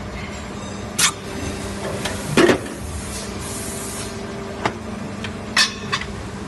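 Injection moulding machine running through a cycle on PP bottle preforms, with a steady hum under it. Several short hisses and knocks sound as the mould opens, ejects the preforms and closes again. The loudest is a clunk about two and a half seconds in.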